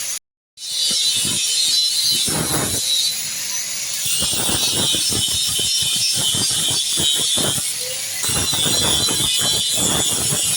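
Rapid, irregular metallic clicking and rattling of hand work on a motorcycle's rear wheel stay, over a steady high hiss. A brief dropout to silence comes near the start.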